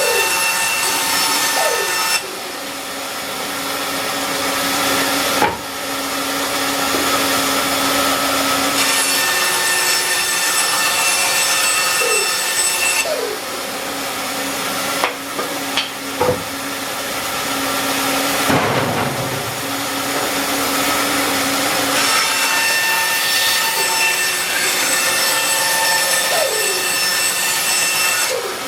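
Band saw running and cutting, the blade sound changing every few seconds as the workpiece is fed and turned, with a few short knocks along the way.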